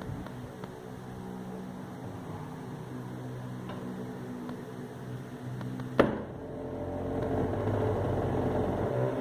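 Bench drill press motor running with a steady hum while the machine shakes. About six seconds in there is a sharp knock, then the running grows louder and rougher for a few seconds before dropping back near the end.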